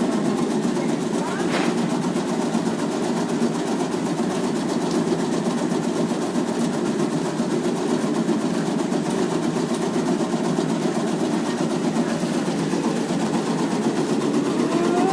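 Motorized tobacco-leaf cutting machine running steadily.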